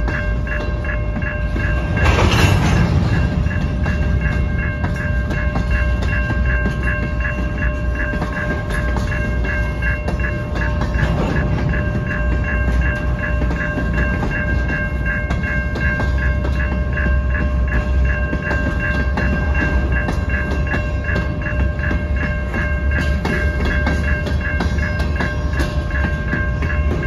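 Covered hopper cars rolling past a level crossing: a steady low rumble of wheels on rail, with the crossing signal's bell ringing at an even beat over it. A brief louder burst of noise about two seconds in.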